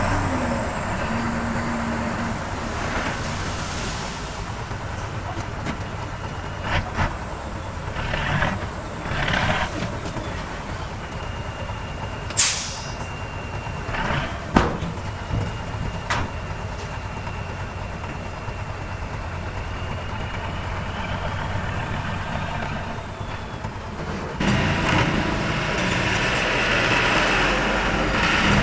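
Diesel engines of heavy earthmoving machinery running steadily, with a short hiss about twelve seconds in and a few sharp knocks. The engine noise jumps louder suddenly about four seconds before the end.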